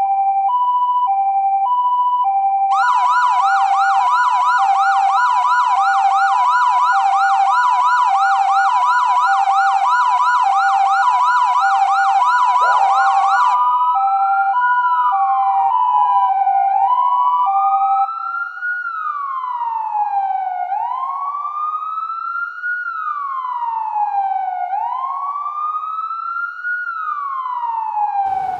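Layered emergency-vehicle sirens: a two-tone hi-lo siren alternates between two pitches, joined about three seconds in by a fast yelp siren sweeping several times a second. Around the middle the yelp stops and a slow wail takes over, rising and falling about every four seconds; the hi-lo drops out a few seconds later, leaving the wail.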